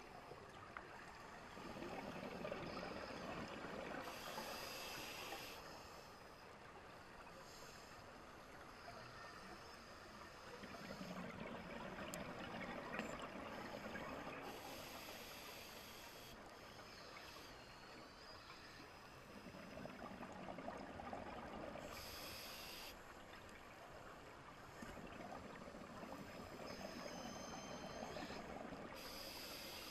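Scuba regulator breathing heard underwater: exhaled bubbles rush and burble in four long surges, about one every nine seconds, with short hissing inhales in between.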